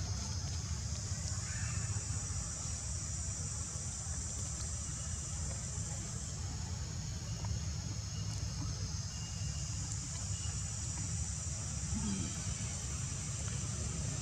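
Steady high-pitched insect drone over a low steady rumble, with a few faint short chirps near the middle.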